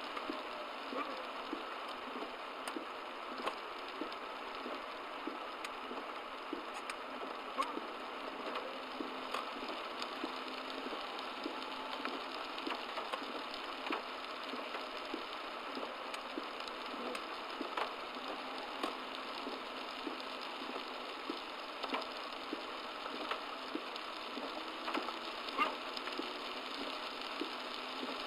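Heavy downpour on a car, picked up by a dashcam's microphone: a steady rush of rain with many small, irregular ticks of drops striking, and a few louder taps.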